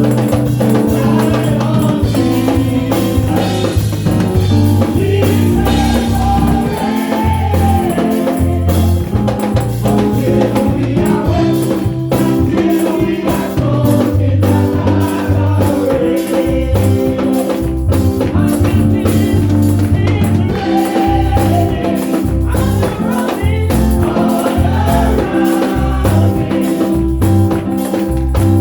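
Gospel praise music: a choir singing over bass and drums, with a tambourine keeping a steady beat.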